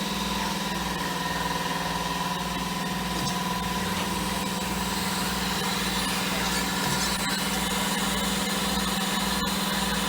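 A machine running steadily in a tire shop, an engine or electric motor hum with a low throb repeating a bit faster than once a second.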